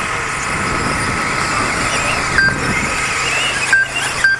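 Electric 2wd RC off-road buggies racing, their motors whining in high tones that rise and fall as the cars accelerate and brake. Short electronic beeps sound three times in the second half.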